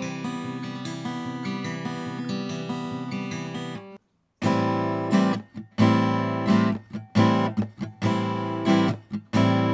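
Acoustic guitar played and recorded through a TONOR TC20 XLR condenser microphone, chords ringing with closely spaced note onsets. After a brief silent break about four seconds in, it switches to strummed chords in a steady rhythm with short stops between strokes.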